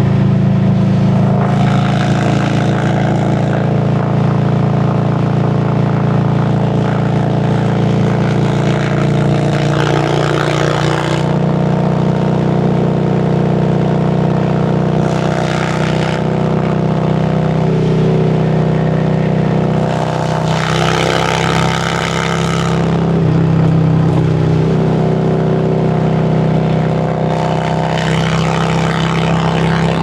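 2017 Harley-Davidson Road Glide Special's Milwaukee-Eight 107 V-twin running steadily at highway cruising speed. A rush of wind and road noise swells up several times over the engine note.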